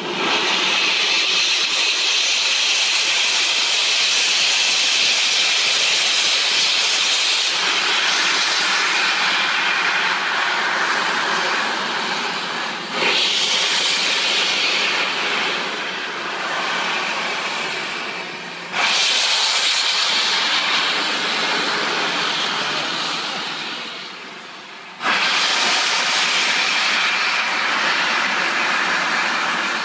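Steam locomotive 60163 Tornado, a Peppercorn A1 Pacific, blowing steam from its cylinder drain cocks in a long, loud hiss. The hiss surges sharply back up about 13, 19 and 25 seconds in and eases off a little between.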